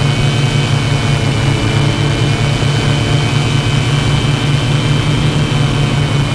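Small drone's electric motors and propellers running steadily in flight: an even, loud hum with a thin high whine above it.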